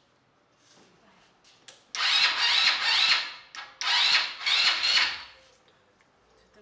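Small ATV's electric starter cranking the engine in two bursts of about a second and a half each, a whirring that rises in pitch; the engine does not catch and falls quiet after each try.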